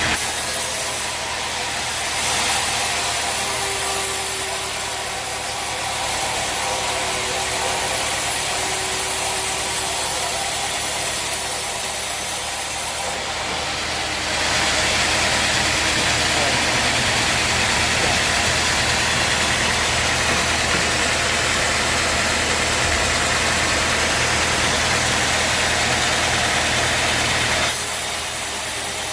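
Sawmill machinery running: a steady engine hum under a dense hiss that grows louder about halfway through and eases off again near the end.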